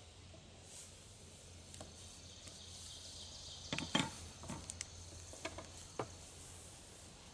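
Metal hive tool scraping and clicking against the wooden top bars of a top bar hive as it is worked in between them: a cluster of five or six short, sharp scrapes and knocks in the middle, the loudest about four seconds in. The bars are tight or sealed up by the bees.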